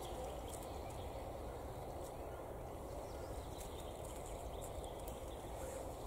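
Steady low outdoor background noise with a few faint crackles of dry leaves on the forest floor as a bone is set down among them.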